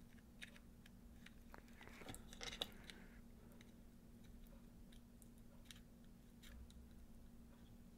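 Near silence with faint small clicks and scrapes of handling as the iPod Nano's internals are slid back into its metal casing, a short cluster of slightly louder ticks about two and a half seconds in, over a faint steady hum.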